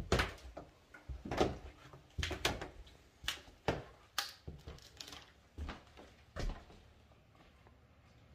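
Footsteps on a floor strewn with debris, about two steps a second, each a short knock or scuff, stopping about six and a half seconds in.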